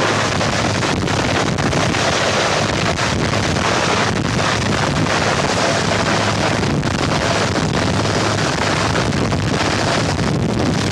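Helicopter flying low with its engine running, its rotor downwash buffeting the microphone as loud, steady wind noise.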